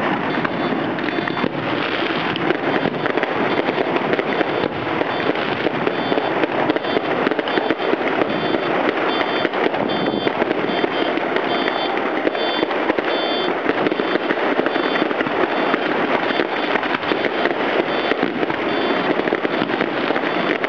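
Fireworks display: an unbroken barrage of bangs and crackling from aerial shells bursting and rockets going up, dense and steady throughout.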